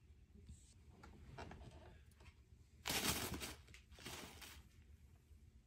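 Two short bursts of rustling, the louder about three seconds in and a second about a second later, with fainter rustles before them.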